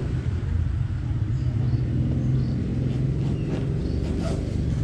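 Steady low rumble, with a few faint clicks about three to four seconds in.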